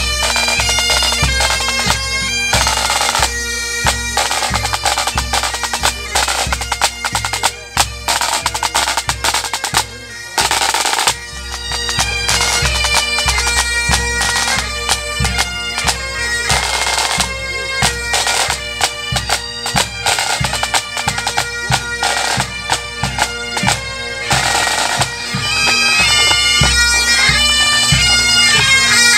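Pipe band playing on the march: Great Highland bagpipes carry the tune over their steady drones, with snare and bass drums beating beneath.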